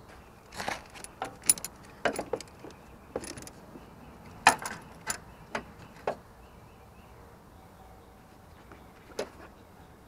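Locking pliers and other metal hand tools clinking and clanking against parts in a car's engine bay: a quick run of sharp clicks and clacks over the first six seconds, then a single clank near the end.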